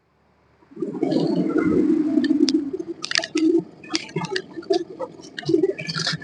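A jacked-up rear wheel of a Maruti Suzuki Ertiga is spun by hand. About a second in, the worn rear wheel bearing gives a low grinding rumble for about two seconds, then irregular clicks and knocks. This is the sound of broken balls inside a badly worn bearing, which causes the car's humming noise when driving.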